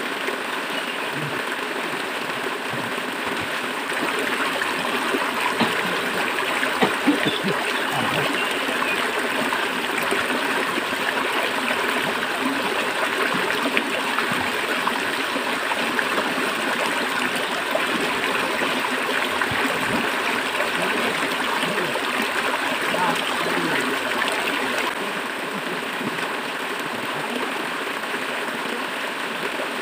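River water rushing and gurgling steadily. It gets louder about four seconds in and drops back near the end.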